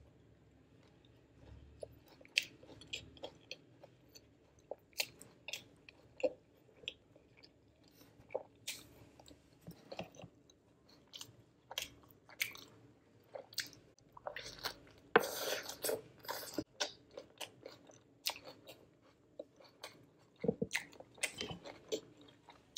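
A person biting into and chewing a KFC spicy Mexican fried-chicken burger: soft, scattered chewing clicks and crunches, with a louder run of crunching about fifteen seconds in.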